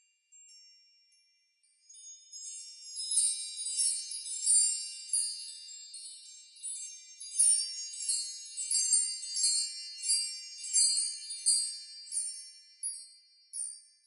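High, tinkling chimes ringing, many light strikes overlapping, with nothing low beneath them; they come in about two seconds in.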